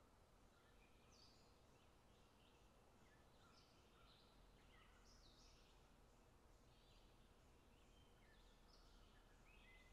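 Near silence, with many faint, short, high chirps scattered throughout.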